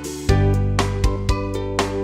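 Background music: an upbeat tune of plucked notes over a steady bass line.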